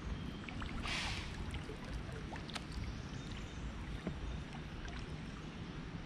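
A deer's sharp, breathy alarm snort (a blow) about a second in, over the low lap of creek water against a kayak with faint scattered ticks.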